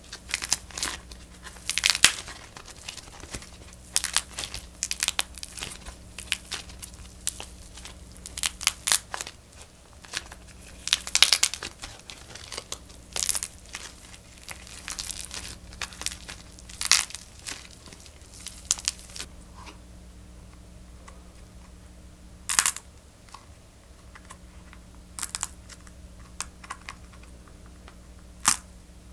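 Dried modelling-clay macaron shells being cracked and crumbled apart by hand: irregular crackling, tearing and crinkling of the brittle clay skin, busy for the first twenty seconds and then sparser, with a few sharp single cracks.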